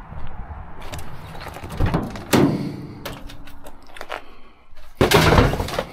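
Van door and scrap metal clattering as the back of a van is opened and loaded. A sharp knock about two seconds in rings briefly like metal, and a loud rattle and scrape of about a second comes near the end.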